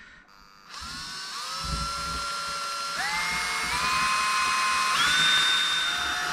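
Small electric drill whining as it bores through a leather handle strip. It starts about a second in, and its pitch climbs in several steps as the speed goes up.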